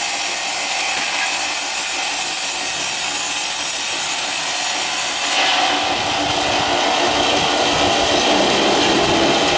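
Powered sawing machine cutting ironwood: a loud, steady, hissing saw-through-wood noise. About five and a half seconds in, the sound changes abruptly to a lower, rougher machine running noise.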